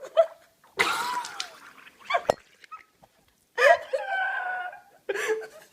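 A person sputters out a mouthful of water while trying to drink it bent over to stop hiccups. There is a spraying splutter about a second in and a sharp click a second later, then high, strained vocal noises.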